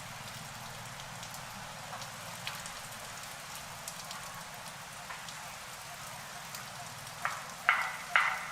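An old monkey coughing, three sharp harsh coughs about half a second apart, starting about seven seconds in. Before them, only a steady background hiss with faint scattered ticks.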